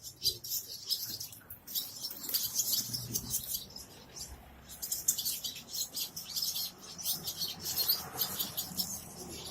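Nesting birds chirping: runs of quick, high-pitched chirps with a few short pauses.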